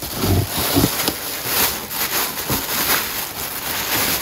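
A thin plastic bag crinkling and rustling continuously as hands bunch it up and pull it out of a cardboard box.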